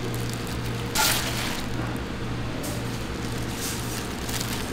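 Gloved hands tossing and squeezing seasoned wild greens in a large earthenware bowl: soft rustling and squishing of plastic gloves and wet leaves, with a brief sharp noise about a second in, over a steady low hum.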